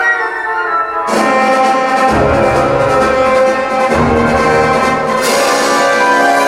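Recorded orchestral music with prominent brass, played back loudly over a hi-fi system's loudspeakers; the full orchestra swells in about a second in, with deep bass notes entering soon after.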